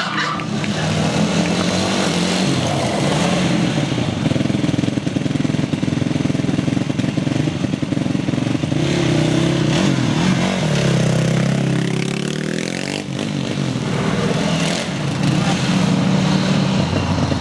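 450cc single-cylinder quad bike engine revving up and down while being ridden, its pitch rising and falling with the throttle.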